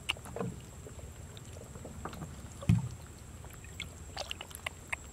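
Water in a woven bamboo basket, lapping gently with a scatter of small drips and light clicks. One dull low thump comes about two and a half seconds in.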